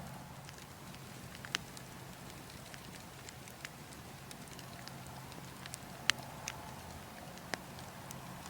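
Logs burning in a wood fire: scattered sharp crackles and pops every second or so, the loudest about six seconds in, over a steady wind-like rush.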